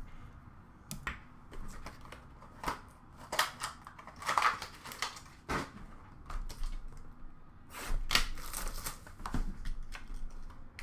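Hockey card boxes and packaging handled by hand: scattered clicks and knocks, with stretches of rustling about four seconds in and again about eight seconds in.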